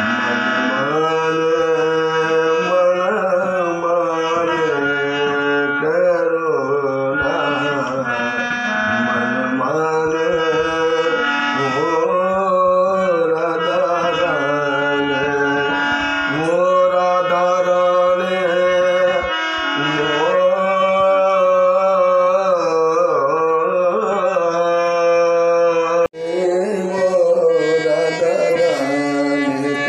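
Harmonium playing with a man singing a Banarasi kajri folk melody in long, gliding phrases over the harmonium's held notes. The sound drops out for an instant near the end.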